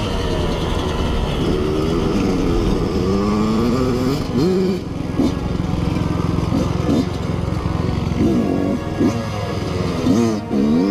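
Kawasaki KX85 two-stroke dirt bike engine being ridden hard, its pitch climbing and falling with the throttle and gear changes, with several short quick revs in the second half.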